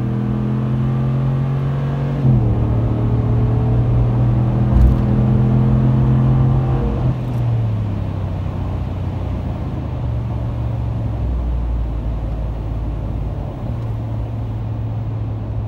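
Exhaust of a 5.7-litre Hemi V8 pickup through Carven Competitor mufflers, running loud and steady under throttle while driving. The note dips briefly about two seconds in, then drops in pitch about seven seconds in and settles into a quieter, lower rumble with road noise.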